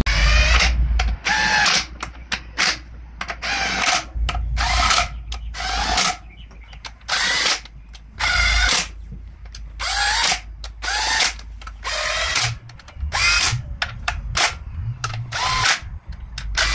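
Cordless drill-driver running bolts into a CVT transmission's front cover in many short trigger bursts, each a motor whine that rises and falls in pitch.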